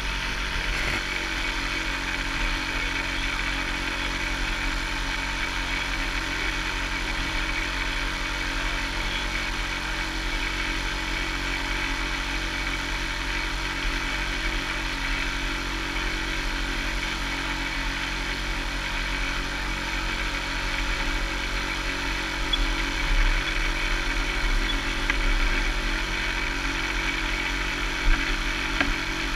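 A small sailboat's auxiliary engine running steadily at constant speed, pushing the boat along under power. A brief knock sounds near the end.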